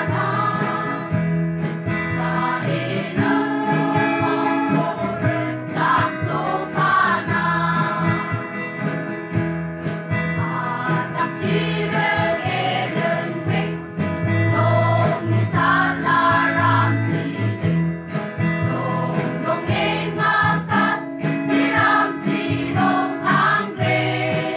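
Church choir singing together in harmony, with acoustic guitar accompaniment.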